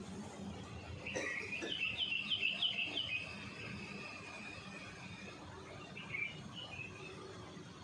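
Bird chirping: a quick run of about six high chirps starting a second or so in, then a single short chirp later.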